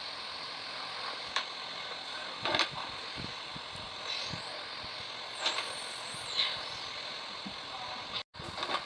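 Handling noise from an RJ45 plug and Ethernet cable being worked by hand: a few short plastic clicks and knocks over a steady hiss. The sound cuts out briefly near the end.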